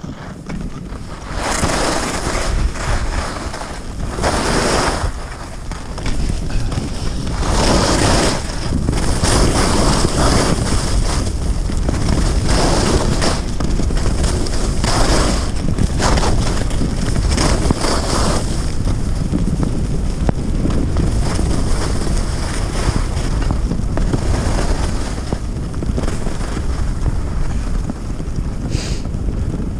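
Wind rumbling on the camera microphone of a skier heading downhill, with the hiss of skis scraping the packed snow swelling with each turn every two to three seconds, steadier in the last third.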